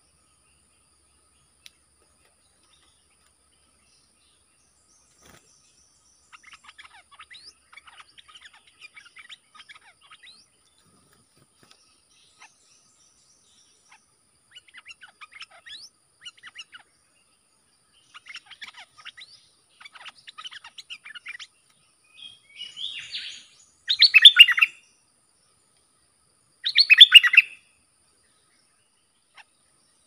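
Caged decoy bulbul calling to lure wild bulbuls: bouts of rapid chattering chirps, then two much louder calls about three seconds apart near the end.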